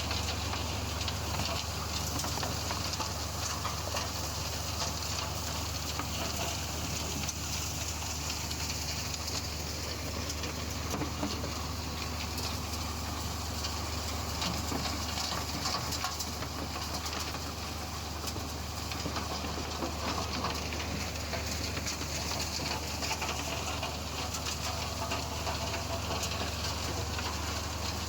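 Alluvial gold washing plant running: a steady low machine hum under a continuous rushing hiss with fine crackle, the sound of water and gravel moving through the plant.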